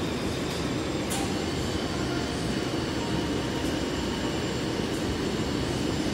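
Steady low roar of a glassblowing hot shop's furnace and burners, with a faint steady high whine from the cordless drill turning the hot glass cane to twist it. A light click about a second in.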